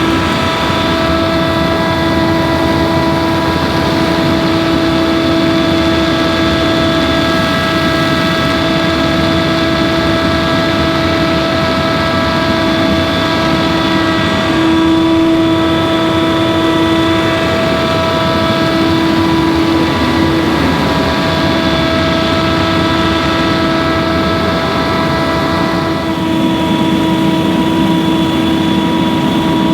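Leaf blower engine and fan running steadily at high speed with a steady whine, its pitch dipping briefly a couple of times.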